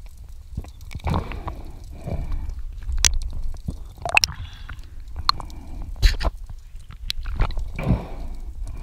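Underwater noise of a diver at work: irregular sharp clicks and knocks with short gurgling, bubbling swells every second or two, heard through water.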